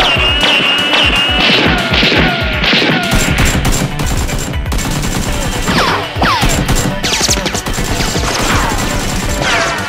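Gunfight sound effects for a toy-blaster battle: rapid volleys of sharp gun-like shots with quick falling, whistling pew sweeps, the shots thickest in the first half. Background music plays underneath.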